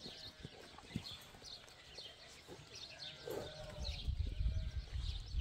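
Small birds chirping, many short high chirps repeating at irregular intervals.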